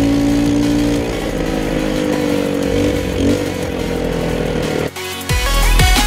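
ATV (quad bike) engine running steadily while riding over sand, its note wavering slightly up and down. About five seconds in the engine sound drops out briefly and a louder, different low sound takes over.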